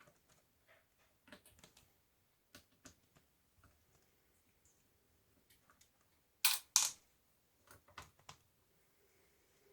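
Small scattered clicks and taps from handling a Dell Latitude laptop's case and parts, with two sharp, loud clicks in quick succession about six and a half seconds in and a few softer ones shortly after.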